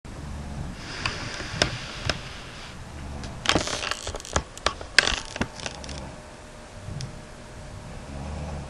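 A sleeping woman snoring: low rumbling snores come about every three seconds, with a breathy hiss between them. A cluster of sharp clicks and scrapes, the loudest sounds here, falls in the middle.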